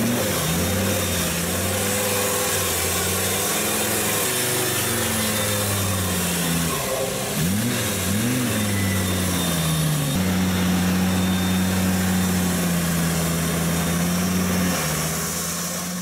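Diesel engine of an off-road 4x4 stuck in deep mud, revving up and down as the driver tries to drive it free, with a couple of quick blips about halfway through, then held at steady high revs for several seconds before easing off slightly near the end.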